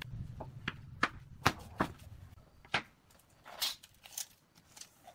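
Wooden boards being handled and knocked down onto a concrete floor: about five sharp separate knocks in the first three seconds, the loudest about a second and a half in, then softer scuffs and clicks.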